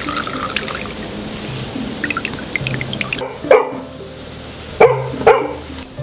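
Cucumber juice trickling in a thin stream into a glass bowl over background music. From about three and a half seconds in, a dog barks three times, short and loud, the loudest sounds here.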